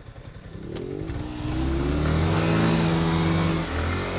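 Motorcycle engine revved hard, rising in pitch about half a second in and then held at high revs with a brief dip near the end, as the rider tries to drive the bike out of deep mud where it is stuck.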